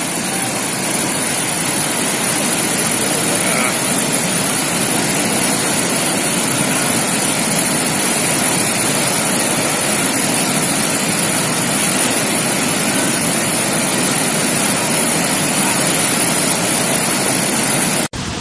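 Rushing floodwater of a river in spate: a loud, steady rush of churning water that cuts off abruptly near the end.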